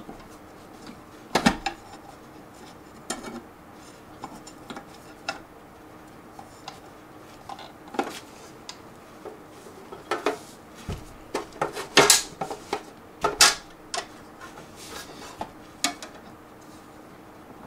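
Metal four-bay hard drive enclosure being handled: scattered metallic clicks, knocks and light rattles as its front cover is worked loose, with a few sharper knocks in the second half.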